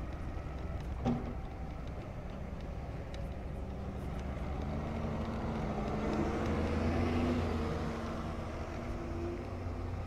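Diesel engines of construction machinery running: a Volvo EW130 wheeled excavator and a sand-laden hauling vehicle. The hum swells louder about six seconds in and eases near the end, with one brief knock about a second in.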